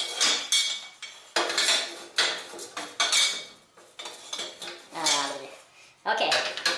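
Metal parts of a welded sawmill head clanking together as they are handled and set in place: about eight sharp knocks, each left ringing and fading.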